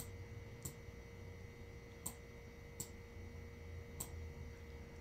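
A handful of faint, sharp clicks, irregularly about a second apart, made while handwriting is added to an on-screen slide, over a low steady electrical hum.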